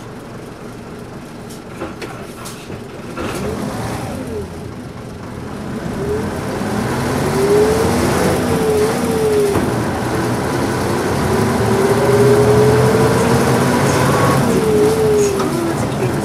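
Nissan Diesel P-U33L city bus's diesel engine revving up through the gears as the bus accelerates, growing louder. The engine note rises, drops at each gear change and rises again, with the rattly character typical of this bus.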